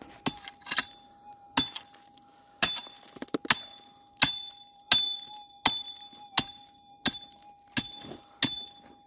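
Steel pick striking hard, stony ground over and over, about a dozen sharp clinking blows at a steady pace of roughly one every three-quarters of a second.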